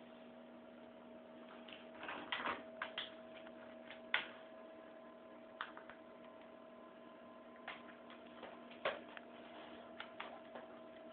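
A pet's wheezing breathing: faint, irregular short clicks and squeaks, over a steady low hum.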